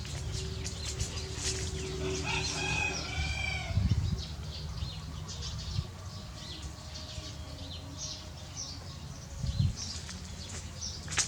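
Rooster crowing once, about two seconds in, with scattered small clicks and knocks around it.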